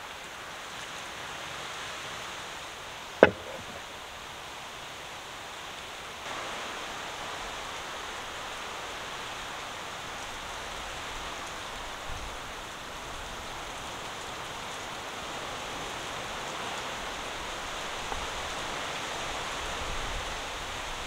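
Steady, even hiss of outdoor ambience, with one sharp, loud knock about three seconds in.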